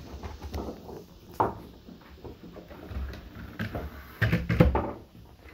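Irregular knocks and thumps, a few scattered ones and a louder cluster about four seconds in.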